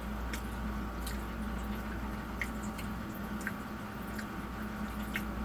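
Close-up mouth sounds of someone chewing a soft breakfast goulash of scrambled eggs, rice and sausage: wet squishing with scattered small clicks, over a steady low hum.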